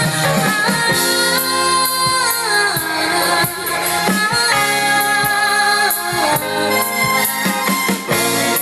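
Live band playing a Mandarin pop song, with a woman singing the melody over the accompaniment.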